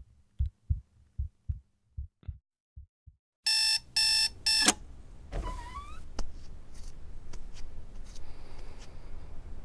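A low heartbeat thumping about three times a second, fading away. Then an electronic alarm clock beeps three times, loudly, and stops. Afterwards there is a low hum with small scattered clicks.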